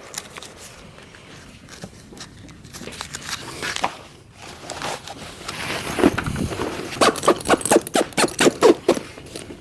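Cartridges being pressed into a rifle magazine: light handling rustle, then a quick run of sharp clicks, about five a second, over the last three seconds or so.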